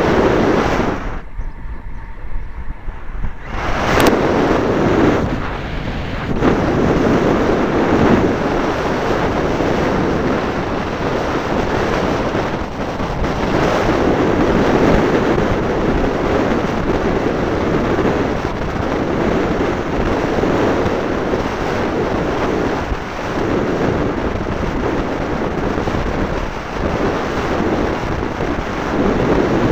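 Wind buffeting the tiny microphone of a key-chain spy camera on a moving racing bicycle: a loud, steady rushing noise that wavers in strength. It dips for a couple of seconds near the start, and a single sharp click comes about four seconds in.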